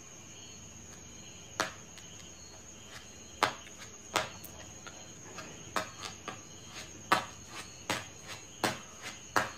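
A steady high-pitched insect trill, with about fifteen sharp clicks and taps scattered irregularly over it.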